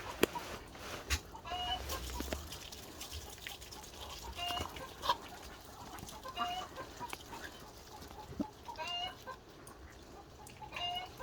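Pet chickens clucking: short calls every couple of seconds, with a few sharp clicks between them.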